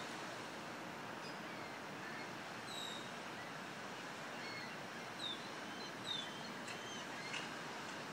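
Birds giving a few short, high, falling chirps, mostly in the second half, over a steady outdoor background hiss.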